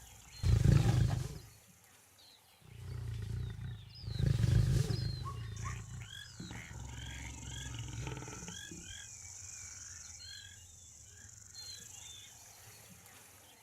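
Lion roaring: three loud, low calls in the first five seconds, trailing off into quieter grunts. Birds chirp behind.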